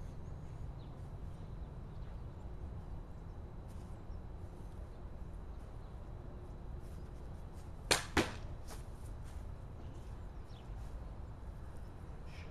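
A longsword swished through the air twice in quick succession, about a third of a second apart. Both swishes are sharp and brief.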